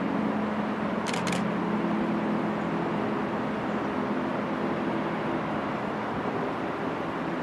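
Electric train running by with a steady rumble and a hum of steady tones. Two short sharp clicks come about a second in.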